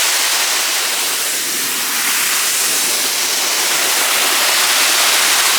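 A small waterfall's falling water making a loud, steady rush.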